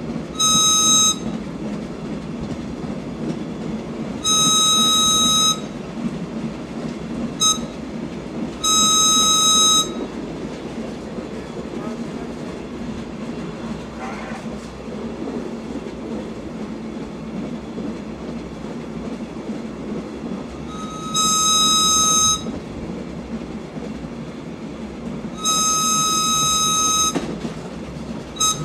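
A caboose backup air whistle, a single high note, blown in the grade-crossing pattern of long, long, short, long near the start and again in the last third. Under it runs the steady rumble of the former Erie Lackawanna caboose rolling along the track at the head of a shoving move.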